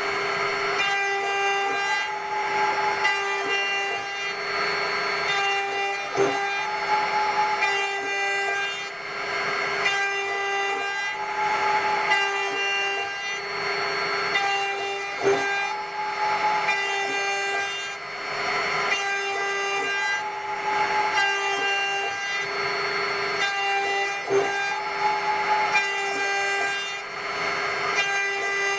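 A CNC milling machine's high-speed spindle runs at 24,000 rpm while its cutter mills D16 duralumin, making a steady high whine. The cutting noise swells and fades about every two seconds as the tool moves along its path. A sharp tick comes about every nine seconds.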